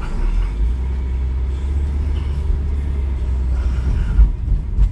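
Low, steady rumble of a car on the road, heard from inside the cabin, with two brief thumps near the end.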